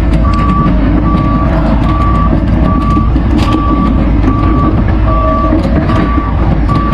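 Excavator's diesel engine working under load while its motion alarm beeps steadily, about one short beep every 0.8 seconds. Scattered knocks and clanks from the machine run through it.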